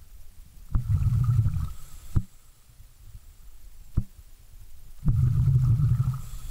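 A scuba diver breathing out through the regulator underwater: two low bubbling rumbles, each about a second long and about four seconds apart, with a few sharp clicks between them.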